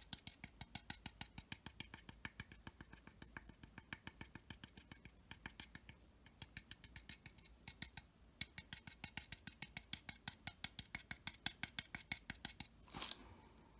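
A paintbrush dabbing oil paint onto a plastic model airframe in quick, light stabbing taps, about five or six a second, pausing briefly a couple of times. There is a short rustle near the end.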